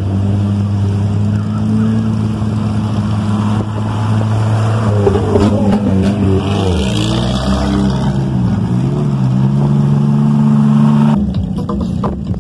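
Off-road 4x4 engine pulling steadily while the vehicle wades through a flooded track, with water splashing. The engine note drops about halfway through, then climbs again, and the sound changes abruptly near the end.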